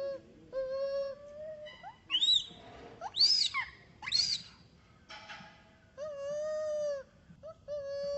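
Infant long-tailed macaque crying in distress: a string of pitched whimpering calls of about half a second to a second each, breaking into three loud, shrill calls that rise and fall in the middle.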